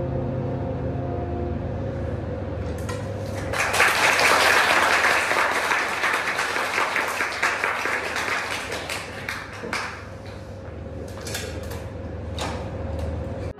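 The last held note of the soprano saxophone and piano dies away, then the audience applauds. The applause starts with a few claps, swells about three seconds in, and thins to scattered claps near the end.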